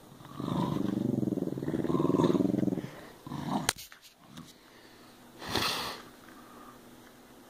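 Dog growling during play over a ball toy: one long growl of about two and a half seconds, then a short second growl. A sharp click and a brief noisy burst follow.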